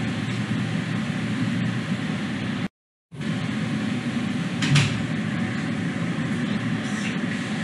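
Steady low rumbling background noise with no speech. It cuts out completely for about half a second near the middle, and there is one brief louder knock or clatter a little later.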